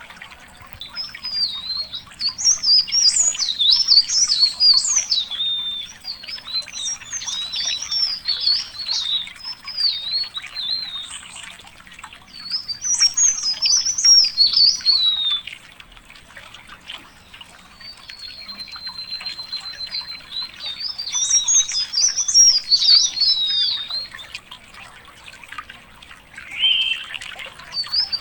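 A songbird singing long, rapid warbling phrases of high twittering notes, each lasting a few seconds with short pauses between them. One phrase opens with a steady held whistle before breaking into warbling, and a single lower note comes near the end.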